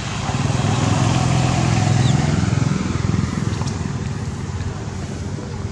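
A motorbike engine passing close by, growing louder to a peak about two seconds in and then fading away.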